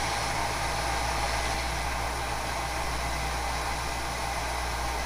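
Belt grinder running steadily, its electric motor humming under the hiss of the abrasive belt as a damascus-steel knife is held against it and ground.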